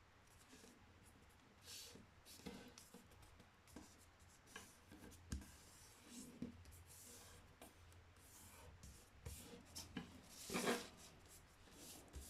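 A sheet of paper being folded and creased by hand: faint, scattered rustles and rubs, with the loudest crinkle about ten seconds in.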